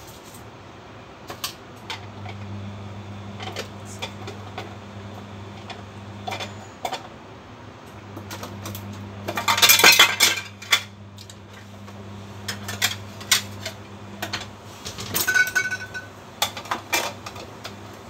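Kitchen utensils being handled: a spoon, small plastic containers and a mug clinking and knocking on a countertop, with a louder, noisier clatter of about a second around the middle. A low steady hum runs underneath for most of it.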